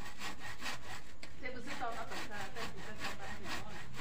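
Hand saw cutting into a tree trunk near its base, a rasping back-and-forth in quick, even strokes, about four a second.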